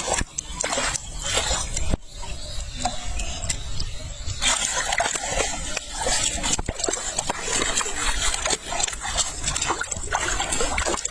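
Water splashing and sloshing in irregular bursts, busier from about halfway through.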